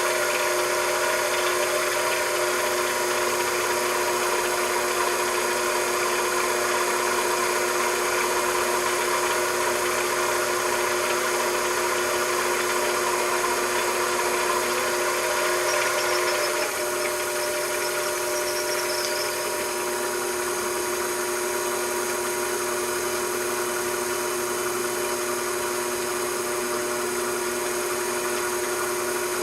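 Metalworking machine tool running steadily, its motor giving a hum of several steady tones. About sixteen seconds in it drops slightly in level and the tones shift, with a few faint high squeaks.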